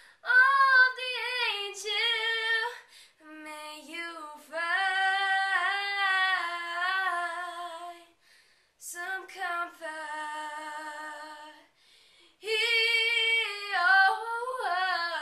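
A young boy with a high, unbroken voice singing unaccompanied in four phrases, with short pauses between them.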